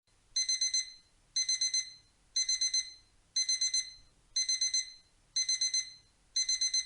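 Digital alarm-clock beeping: groups of four quick high-pitched beeps, about one group a second, starting just after the countdown hits zero. It is the timer's finishing alarm.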